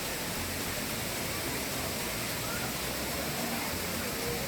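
Steady rush of a waterfall: the Kothai River dropping about 50 ft at Thripparappu Falls, a constant even roar of falling water. Faint voices of people come through now and then.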